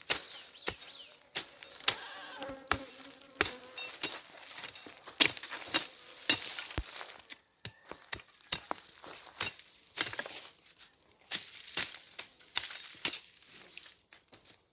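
Honey bees buzzing around an open hive, with one bee passing close and buzzing clearly about two seconds in. Frequent sharp clicks and knocks are the loudest sounds.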